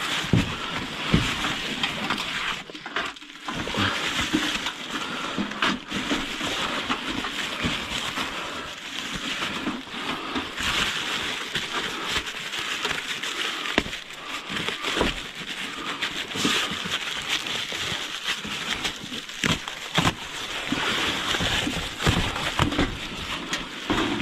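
Rummaging and unpacking by hand: continuous rustling and crinkling of cardboard and plastic packaging, with many scattered knocks and clunks as items are moved about.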